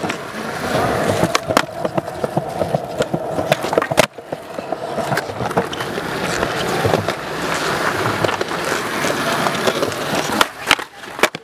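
Skateboard wheels rolling over smooth concrete with a steady rumble, broken by sharp clacks of the board popping and landing tricks, the loudest about four seconds in and several more near the end.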